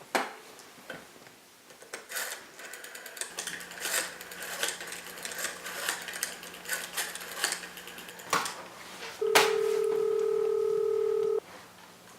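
A telephone being dialled: a run of irregular clicks and taps from the handset, then one steady ringing tone of about two seconds as the call goes through.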